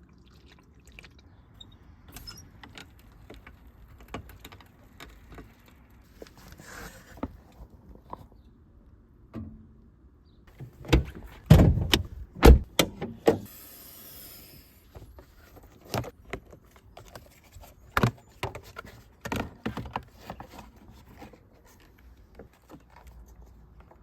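Metal tools and parts being handled during an oil change: scattered clicks and clinks, a quick run of loud knocks about halfway through, then a brief hiss.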